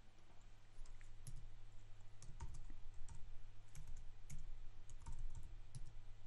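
Typing on a computer keyboard: irregular, quick key clicks over a steady low hum.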